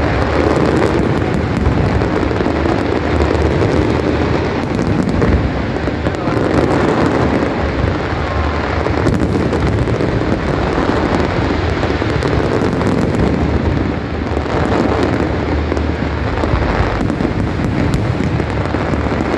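Fireworks display at its height, with many aerial shells bursting at once. The bangs run together into one loud, continuous din.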